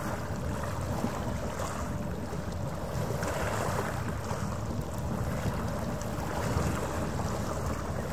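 Steady wind noise on the microphone over harbour water, with a faint, steady low hum beneath it and a gentle swell in the noise a few seconds in.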